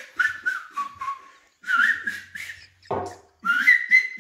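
A person whistling short, wavering notes in several brief phrases, with a single knock about three seconds in.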